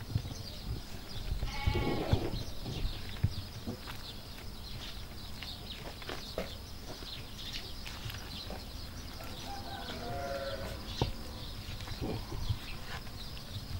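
Livestock bleating, one loud wavering bleat about two seconds in and a weaker call around ten seconds, over the soft squelching and tapping of hands kneading bread dough in an aluminium bowl.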